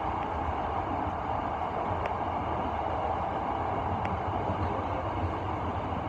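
Electric commuter train running steadily through a subway tunnel, heard from inside the front car: a constant rumble of wheels on rail, with faint clicks about every two seconds.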